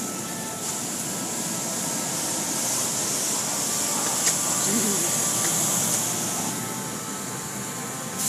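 Car wash equipment running: a steady hiss of water spray over a steady machine hum. The spray grows louder about a second in and eases off near the end.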